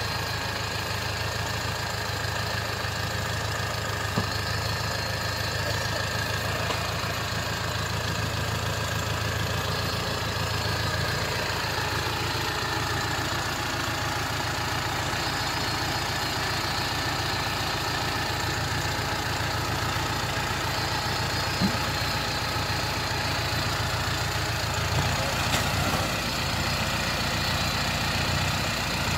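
Toyota Land Cruiser hardtop's engine running at low, steady revs as it crawls down a steep mud bank. There are a few light knocks along the way.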